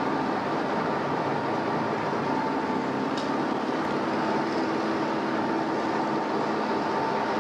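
Train moving slowly through a rail yard: a steady, even rumble and hiss with no change in loudness, and a brief tick about three seconds in.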